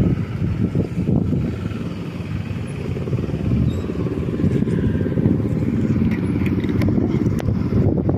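Motorcycle riding along a road: a steady engine drone mixed with low wind rumble on the microphone.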